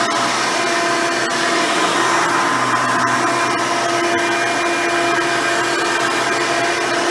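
Hoover Elite 350 upright vacuum, fitted with a 7-amp motor and seven-blade fan, running steadily with its motor whine, with a few short sharp ticks along the way.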